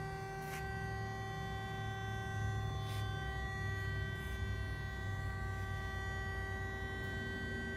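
Marvel E2125-PC60 vertical band saw running in its automatic cycle, its drive motor and hydraulic pump giving a steady hum made of several held tones over a low rumble. A few short hisses come through, about half a second in, around three seconds, and just after four seconds.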